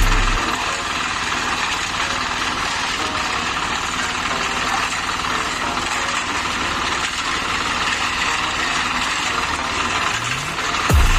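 Engine running steadily at a constant speed, with a dense, even mechanical noise.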